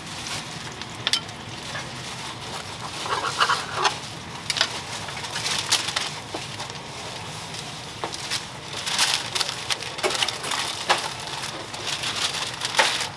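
Cooking at a street-toast griddle: a steady frying sizzle with scattered short scrapes, clicks and rustles of utensils and wrapping.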